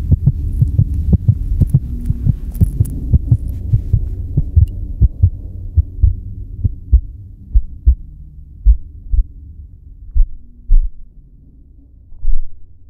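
Sound-design heartbeat: low thumps over a low hum. Both fade away gradually, the beats spacing out and slowing, with a final strong double beat near the end.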